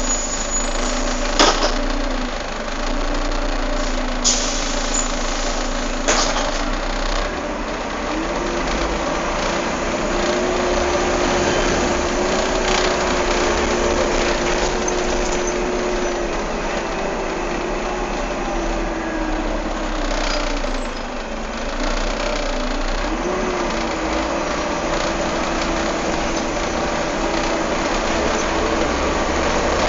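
Volvo B7TL double-decker bus's engine cooling fan running over the idling engine, a steady whine that steps up in pitch about eight seconds in and wavers briefly a little past twenty seconds. A few sharp clicks come in the first six seconds.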